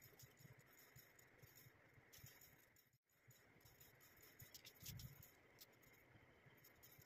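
Near silence: faint rustles and light taps as hands handle a painted glass jar and a paintbrush, with a soft low bump about five seconds in.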